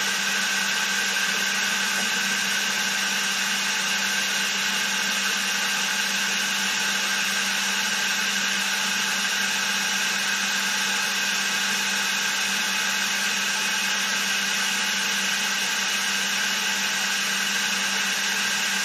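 Milling machine spindle running steadily at constant speed, a level motor hum with a high whine, as it turns an edge finder.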